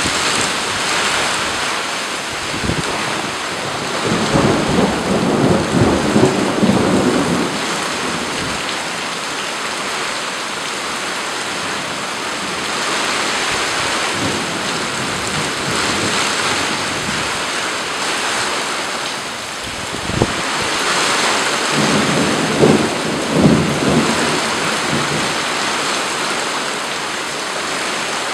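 Thunderstorm: steady rain with thunder rumbling twice, first about four seconds in and again about two-thirds of the way through, the second opening with a sharp crack.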